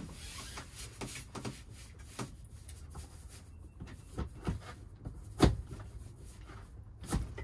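Pop-up camper's bunk-end canvas and its hooks and frame being handled while the bed end is hooked out: a series of light knocks and clicks, with a sharper knock a little past halfway and another near the end.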